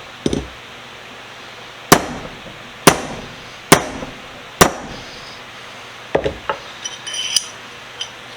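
Hammer blows on a bent metal vise handle laid on a small anvil to straighten it: four sharp, ringing strikes about a second apart after a lighter opening tap, then a few lighter metallic clinks near the end.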